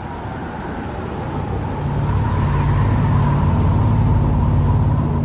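An engine running steadily, growing louder about two seconds in and then holding, with a steady high whine above its low drone.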